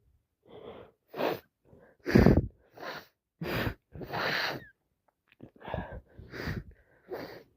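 A woman in a sneezing fit: a run of short, sharp breaths and sneezes, the loudest about two seconds in.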